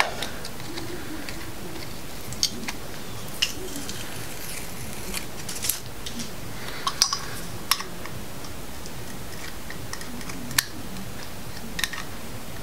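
A scraper blade against the engine block's water pump mounting face gives a few scattered sharp clicks and light scrapes as it picks off masking tape, over a steady background hiss.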